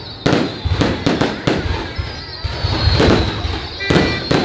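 Aerial fireworks going off in quick succession: a rapid, irregular run of sharp bangs and pops, several a second, with a thin high whistle running over them.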